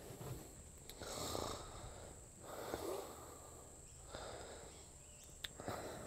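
A man snoring: four slow, noisy breaths about a second and a half apart.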